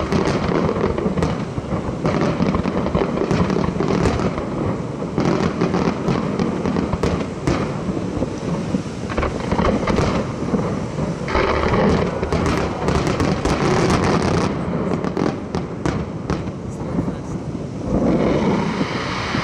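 Aerial fireworks shells bursting in a dense, overlapping barrage of booms and crackle, with a thicker spell of crackling about two-thirds of the way through.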